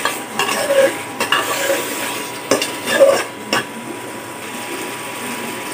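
A metal spoon stirring and scraping fried fish pieces through thick masala in an aluminium pot, with several clinks against the pot in the first half, over a steady sizzle of the masala. The fish is being sautéed (koshano) in the spice paste.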